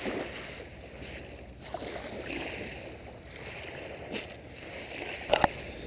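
Small waves washing on the beach, a soft, uneven rushing. A single sharp click comes about five and a half seconds in.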